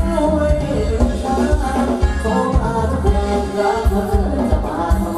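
Thai ramwong dance music played by a live band: a singer over a steady, heavy beat.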